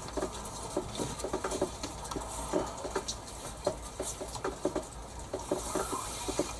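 Cord being passed and pulled through a lashing on wooden poles by hand: irregular small scrapes, rustles and ticks of cord rubbing on bark and hands handling the poles.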